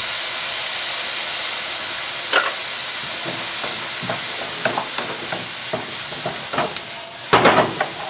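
Chicken, egg, onion and basil sizzling hard in a hot wok just after cooking wine has been poured in. From about two seconds in, a wooden spatula scrapes and knocks against the wok in quick stirring strokes, the loudest clatter near the end.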